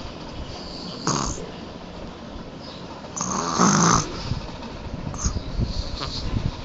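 A person snoring heavily: a short snore about a second in, then a long, loud, deep snore a little past three seconds, and softer breathing sounds after it.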